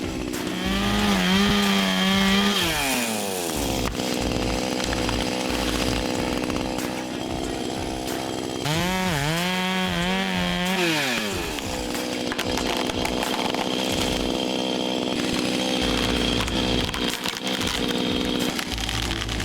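Gas chainsaw idling, then opened to full throttle twice, about half a second in and again around nine seconds. Each time the engine note wavers under load for a few seconds before winding down to idle. The saw is hinge-cutting small trees.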